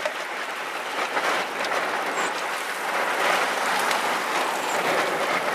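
Steady rushing noise of storm wind and rain close to a tornado, swelling slightly a few times, with a few faint ticks.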